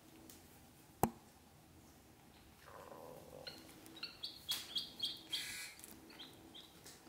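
Ducklings peeping: a string of about eight short, high peeps through the second half. There is also a single sharp click about a second in.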